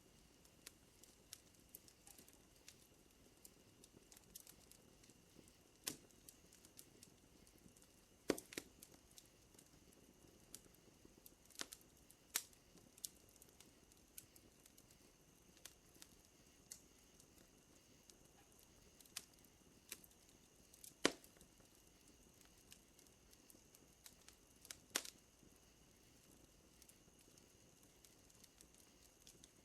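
Wood fire crackling: quiet, irregular pops and snaps, with a few louder cracks spread through. Behind it runs a faint, steady, high-pitched night-insect drone.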